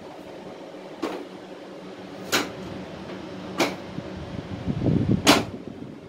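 Four sharp plastic clicks, the last one loudest, from handling the casing of a Panasonic wall-mounted split air conditioner's indoor unit, with a rumble of handling just before the last click. A steady low hum runs underneath.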